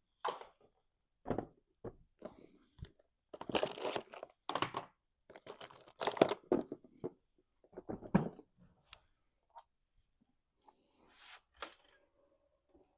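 Cardstock pieces being handled: irregular rustling and crinkling of stiff paper, in short bursts with small taps between them.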